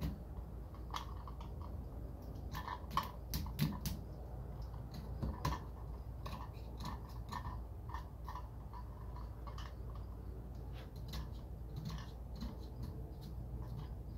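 Old dried glue being scraped and picked off a plastic Bose cube speaker housing: a run of short, irregular scratches and clicks.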